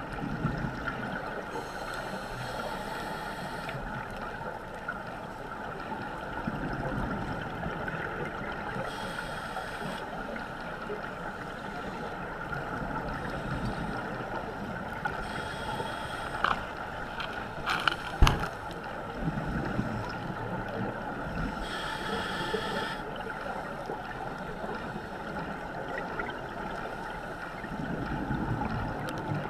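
Muffled underwater sound through a GoPro's waterproof housing: a steady hiss, with a scuba regulator's exhaled bubbles rumbling and hissing about every six to seven seconds. A single sharp knock against the housing comes a little past halfway.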